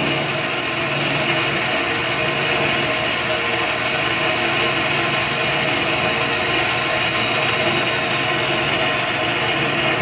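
Greenlee 1346 6-by-9-inch horizontal metal-cutting bandsaw running steadily, its blade cutting through a steel tube clamped in the vise.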